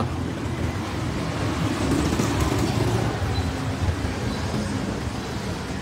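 Steady low rumble of vehicle noise, swelling slightly between two and three seconds in.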